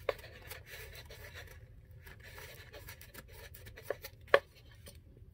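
Faint rubbing and handling noise of hands pressing a wooden dollhouse bed end against its cardboard base, with a few small clicks, the loudest just after four seconds in.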